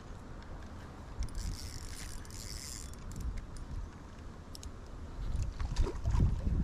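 Fishing reel clicking and ratcheting as a hooked Murray cod pulls on the line. The high hissy clicking is brightest for over a second, starting about a second in. Louder low thumps come in near the end.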